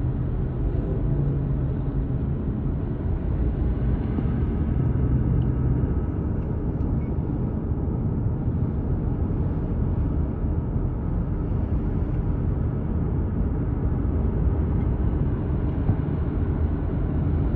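Steady low rumble of a car driving along a highway: tyre and engine noise from the moving vehicle.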